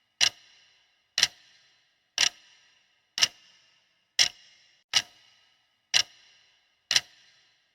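Clock-style tick sound effect of a quiz countdown timer, about one tick a second, each with a brief ring, eight ticks in all.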